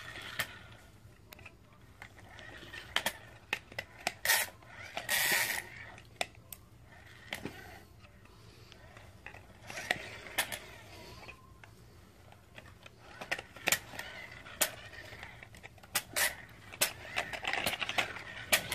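Hard plastic clicks and knocks from friction-powered toy monster trucks being handled and pushed on carpet, their body shells pressed and swapped, with a short louder noise about five seconds in.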